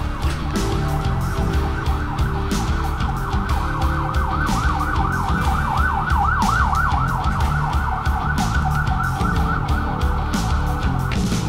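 Background rock music with a beat, carrying a siren-like wail that sweeps up and down about three times a second.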